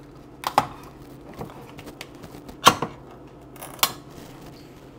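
A metal soup can being opened by hand: a few sharp metallic clicks and clacks, a close pair about half a second in, then single louder ones near the middle and again about a second later.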